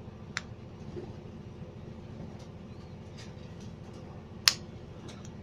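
Light clicks and clacks of a Vario 125 centrifugal clutch shoe being fitted by hand onto its backing plate, with one sharp, loud click about four and a half seconds in as the shoe goes into place.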